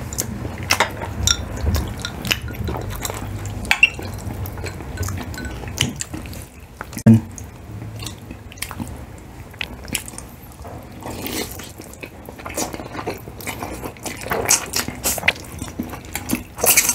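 Close-miked eating of crispy fried chicken and spaghetti: biting and chewing, with irregular crunches and wet mouth clicks.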